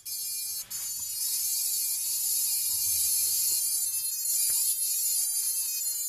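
Brushless motors of an FPV racing drone playing a buzzy electronic tune through their ESCs, the custom start-up tones of BLHeli 16.65 firmware.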